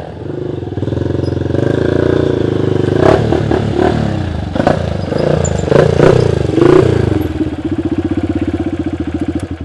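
Motorcycle with an aftermarket racing exhaust being revved, with several sharp throttle blips rising and falling midway. Near the end it settles into a fast, even putter.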